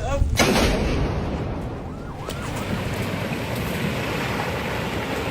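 Loud rushing rumble of a landslide of earth and rock, starting abruptly about half a second in and easing slightly around two seconds in.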